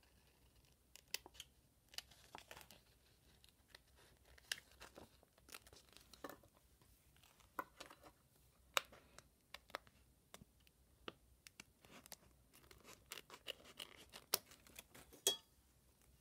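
Quiet, irregular crinkling and rustling of a plastic sticker sheet being handled, with scattered sharp little clicks.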